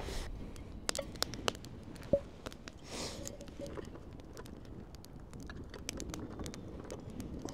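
Wood campfire crackling, with sharp irregular pops throughout and a short rush of noise about three seconds in.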